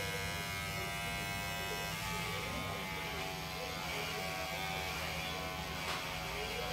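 Electric hair clipper running with a steady buzz, its tone shifting slightly after about two seconds.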